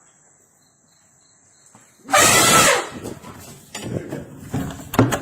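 An elephant trumpets once, a very loud short blast about two seconds in, breaking a quiet stretch with crickets chirping; irregular knocks and low sounds follow.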